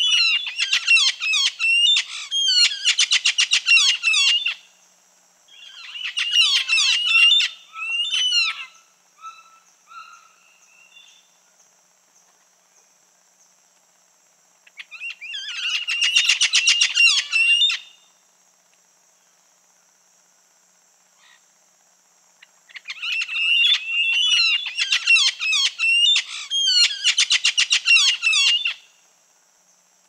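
Red-fan parrot (Deroptyus accipitrinus) calling in bursts of rapid repeated notes, each burst lasting a few seconds, with pauses of several seconds between bursts.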